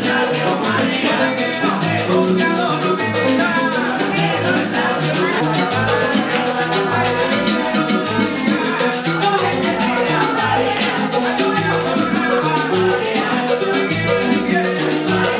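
Traditional Cuban band music: strummed guitar and laúd over a steady bass line, with a güiro, maracas and bongos keeping a shuffling rhythm and voices singing.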